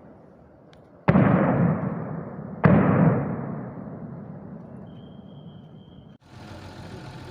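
Two distant gunshots about a second and a half apart, each followed by a long rolling echo that fades over a few seconds.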